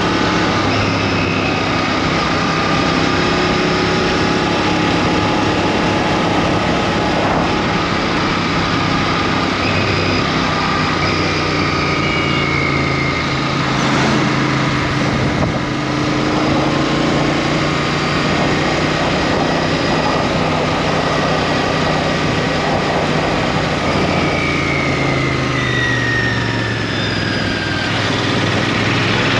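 Royal Enfield Interceptor 650's 648 cc parallel-twin engine running while riding, under steady wind and road noise. A few seconds before the end its note falls.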